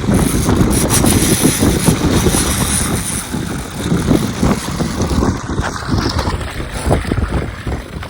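Wind buffeting the microphone on a boat, a loud uneven rumble that surges and eases in gusts.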